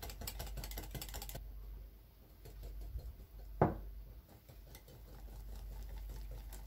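Wire whisk beating a thick egg, milk and flour batter in a glass bowl, clicking quickly against the glass. The clicking eases off after about a second and a half and picks up again near the end, with one dull knock midway.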